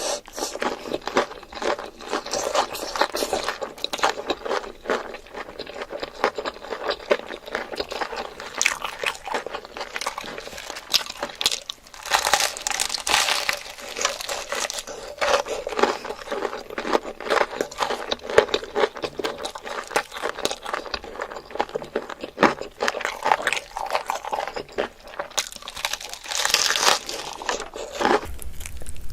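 Close-miked eating sounds: dense, irregular crunching and chewing that runs on without pause.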